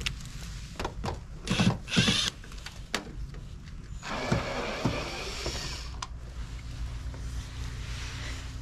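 Cordless drill/driver backing screws out of a trailer's metal skin: two short bursts of the motor, then a steadier run of about two seconds.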